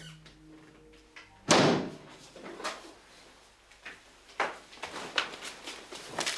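A door slams shut about a second and a half in, followed by a few lighter knocks.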